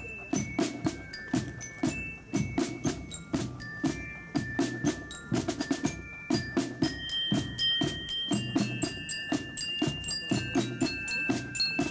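Marching drum band playing: snare drums beat a steady march rhythm, about two strokes a second with a roll around the middle, under a high, bell-like melody.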